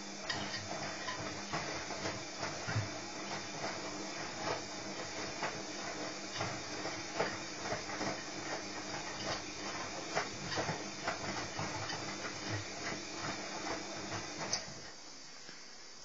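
Washing machine running: a steady hiss and hum with many irregular knocks and clicks, which cuts off suddenly near the end.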